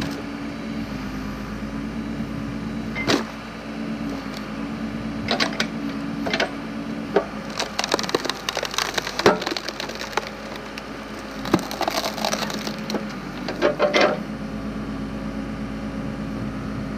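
Backhoe engine running steadily while its hydraulic log splitter forces logs apart. Wood cracks and splinters in a series of sharp snaps, densest from about seven to fourteen seconds in.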